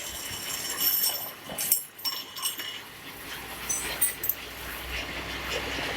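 Metal lathe parting off a workpiece: broken high-pitched squealing from the parting tool over a steady machining noise, with a low hum from about three seconds in.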